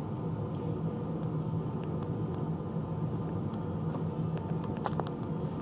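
Steady low machine hum inside a parked combine's cab, with a few faint clicks near the end.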